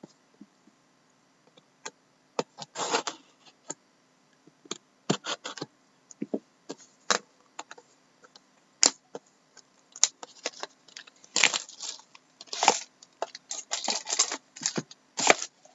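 Trading cards and their packaging being handled: scattered sharp clicks and snaps with short crinkling rustles, at irregular intervals and busier in the second half.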